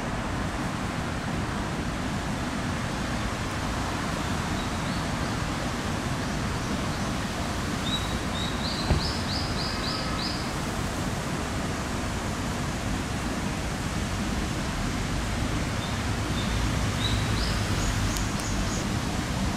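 Steady outdoor background noise with a low rumble. Twice, a quick run of short high chirps steps upward in pitch: about eight seconds in, and again near the end.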